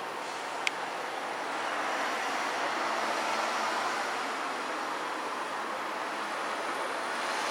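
Steady rushing background noise of the outdoors, most likely distant traffic, swelling a little about two seconds in, with a single sharp click just under a second in. No firework bangs are heard.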